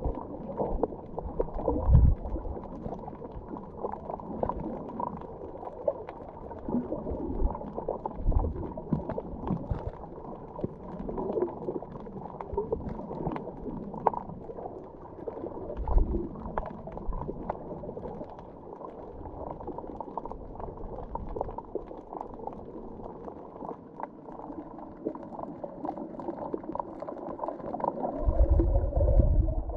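Muffled underwater water noise picked up by a camera held below the surface: a steady churning and gurgling, with a few low thumps.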